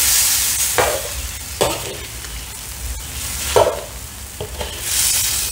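A metal ladle stirs and scrapes boiled chicken feet through thick curry paste in a wok: a scrape every second or two, with a hiss of frying near the start and again near the end.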